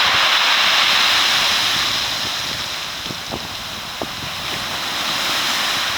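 Rough surf washing over a beach of rounded boulders in storm wind, as a loud rushing hiss that eases after about two seconds. A few sharp clicks follow.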